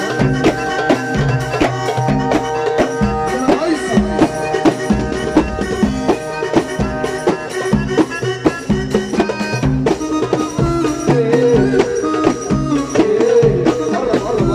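Live Egyptian band music without vocals: drums and percussion keep a fast, steady beat under a sustained melody line that becomes more ornamented and wavering near the end.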